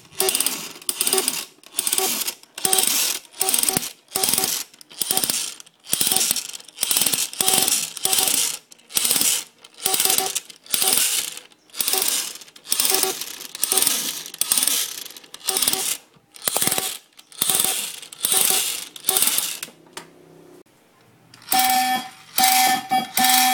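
Evenly repeated bursts of hissing electronic noise, a little more than one a second, each with a faint tone in it. They stop near the end, and after a short lull a steady buzzing electronic tone starts.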